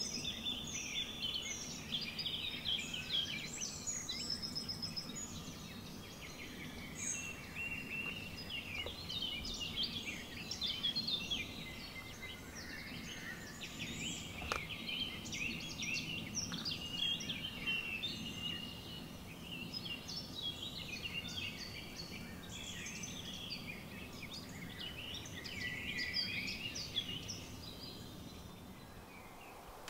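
Several songbirds singing at once, a busy overlapping run of chirps and trills over a low steady hum; the birdsong dies away near the end.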